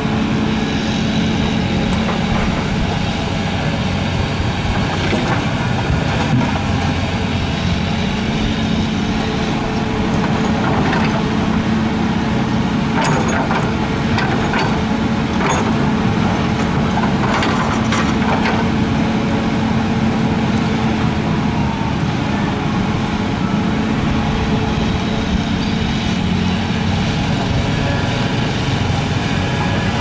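Diesel engine of heavy earthmoving equipment running steadily under load, with a cluster of sharp metallic knocks and clatter about halfway through.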